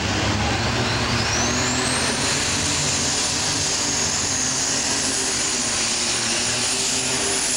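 Unlimited super stock pulling tractor's turbocharged diesel engine running flat out as it drags the weight-transfer sled. A high turbocharger whine climbs over the first two seconds, then holds steady above the engine noise.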